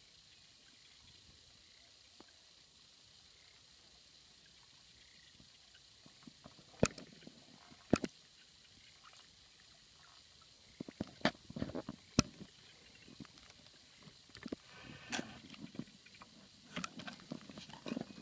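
Scattered short splashes and sharp knocks from a water snake caught on a line, twisting at the surface of shallow water, over a faint steady hiss. The hits are sparse in the first half and come more often towards the end.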